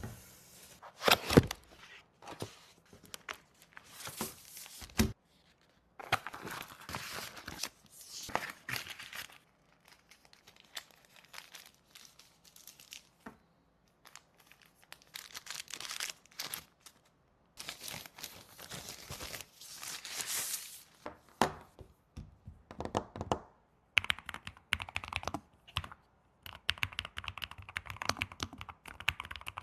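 Irregular rustling, scraping and clicking of things being handled, in stretches of a second or two broken by short pauses.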